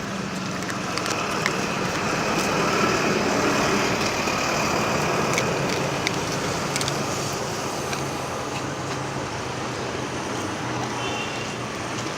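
Road traffic noise: a motor vehicle passing, growing louder over the first few seconds and then fading into steady traffic hum.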